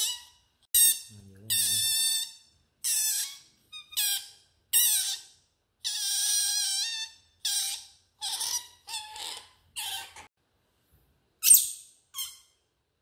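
A young otter calls again and again in high-pitched squeals, about a dozen in all. Some are short chirps and some are drawn out for over a second, and the loudest comes near the end.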